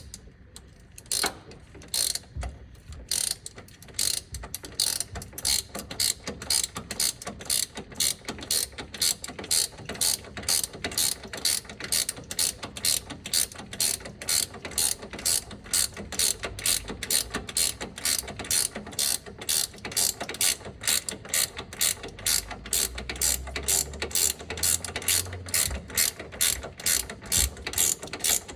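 Hand ratchet wrench clicking steadily, about three clicks a second, as it turns a bolt on the brake bracket by hand.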